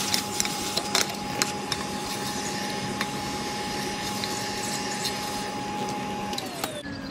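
Vacuum cleaner running steadily with a constant whine, its nozzle sucking soot and ash out of a miniature steam locomotive's smokebox, with clicks of debris rattling up the metal wand in the first second or so. Near the end the motor is switched off and its whine falls away as it winds down.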